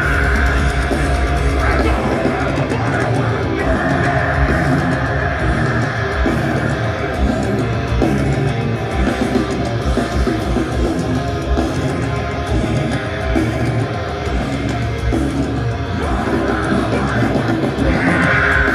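Heavy metal band playing live: distorted electric guitars, bass and drums, loud and dense.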